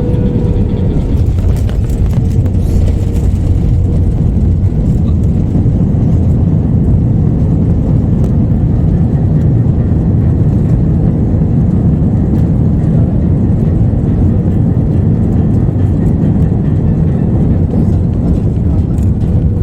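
Steady, loud rumble of air and engine noise inside the cabin of an Airbus A321 airliner in flight, with a faint steady hum that fades about a second in and returns near the end.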